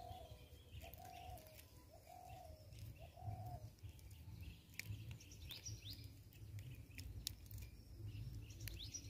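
A bird calling four even hooting notes, about one a second. Later come quick high rising chirps from a small bird.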